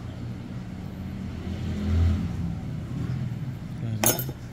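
Low steady rumble that swells about two seconds in, with a single sharp click near the end.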